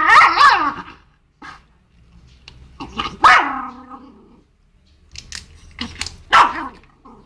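Small dog barking and growling in short bouts, the loudest at the very start, about three seconds in, and near the end, with quieter yips between.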